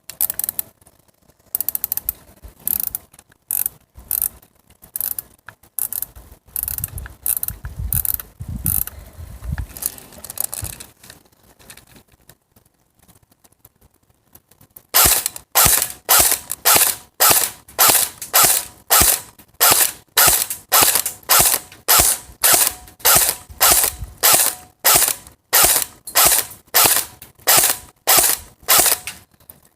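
Air gun mechanism clicking over and over, like a ratchet: soft, uneven clicks at first, then after a short lull a run of sharp, even clicks about twice a second.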